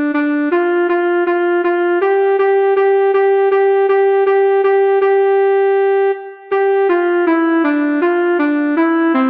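Pianika (melodica) playing a Telolet Basuri bus-horn tune one note at a time. A few notes lead into a long held note of about four seconds, then a brief break, and quicker notes start again near the end.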